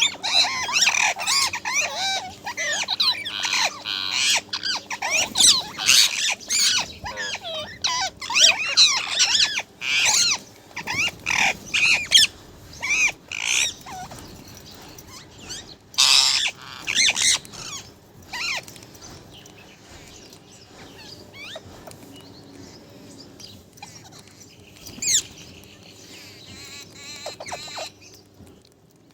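Parrot chattering and squawking in quick gliding chirps and whistles, dense for the first half, then only occasional calls.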